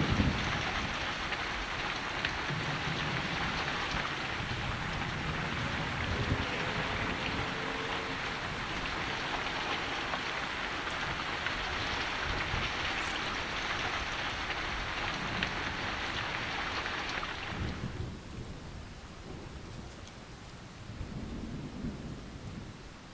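Heavy rain pouring down with low rumbles of thunder now and then. The rain cuts off suddenly about three-quarters of the way through, leaving a quieter hush with one more low rumble near the end.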